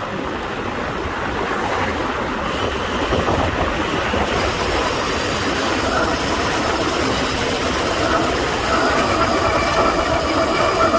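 Wind and road noise rushing past on a fast road-bike descent, with the CUBE Attain GTC Pro's disc brakes squealing in steady high tones from about halfway through, stronger near the end.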